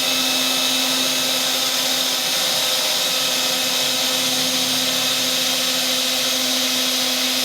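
Electric drill motor running at a steady high speed, an even whine with no change in pitch or load.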